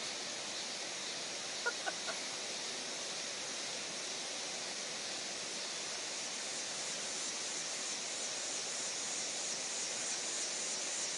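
Steady outdoor background hiss, with a high insect drone growing a little stronger toward the end. Three quick, short chirps sound close together about two seconds in.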